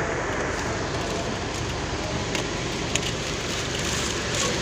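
Isuzu D-Max 2.5-litre diesel engine idling steadily, with a few small clicks.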